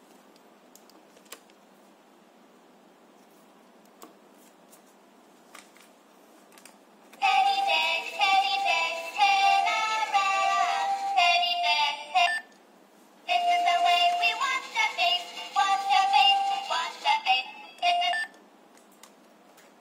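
Electronic Minion piggy bank toy's small speaker playing a synthetic sung jingle. It starts abruptly about seven seconds in, after a stretch of faint hiss and a few light clicks from handling, and breaks off briefly in the middle before a second phrase.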